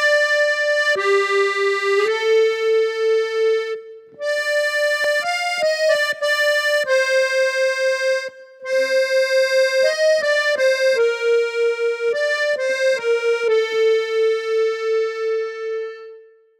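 Solo instrumental theme: one instrument plays a slow melody one note at a time, mostly long held notes. It breaks off briefly twice and fades out at the end.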